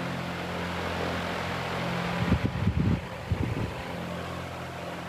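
A steady low mechanical hum. About two to three and a half seconds in, a cluster of low thumps comes from the camera being handled and moved.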